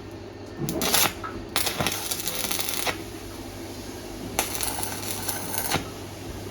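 Electric arc welder striking tack welds on an iron gate stopper: two crackling bursts of about a second and a half each, with a shorter flash before them, over a steady low hum.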